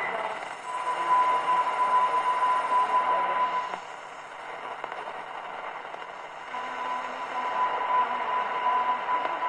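Telefunken Bajazzo TS205 radio tuned across the medium-wave AM band: static and hiss with a steady high whistle. The whistle stops a little under four seconds in, the noise drops for a few seconds, and the whistle comes back about six and a half seconds in.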